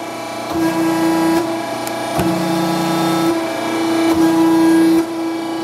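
Morrison hydraulic keyseater running its automatic cycle: the 20 hp hydraulic power unit hums steadily while the ram strokes back and forth about every two seconds, with a short knock each time the ram reverses. The table feeds in a couple of thousandths of an inch on each stroke.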